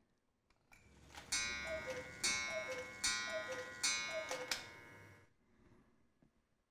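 Mechanical weight-driven cuckoo clock with a weekly movement calling its cuckoo four times, each call a falling two-note "cu-ckoo" from its bellows pipes.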